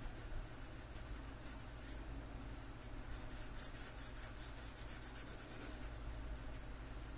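Pencil scratching on sketchbook paper in quick, repeated back-and-forth shading strokes, busiest in the middle.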